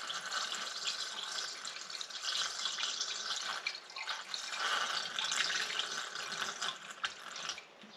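Coolant pouring from a plastic gallon jug into the cylinder head of a Ford flathead engine, a steady splashing pour that stops near the end as the jug empties. The block is being filled through the head first to push the air out of it.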